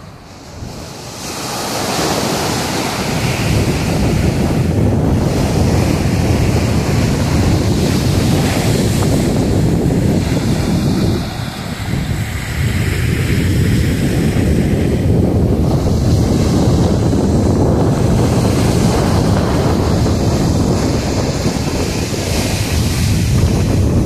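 Black Sea surf breaking and washing up a sandy shore, with wind blowing across the microphone. The sound eases briefly about halfway through.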